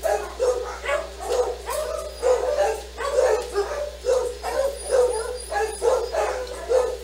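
A dog barking over and over in short, high-pitched yaps, about two a second.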